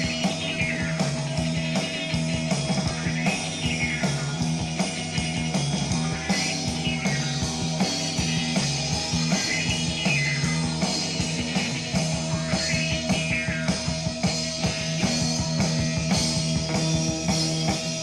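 Psychedelic post-punk rock music with guitar and drums over a steady low bass part, with recurring high sliding notes that rise and fall.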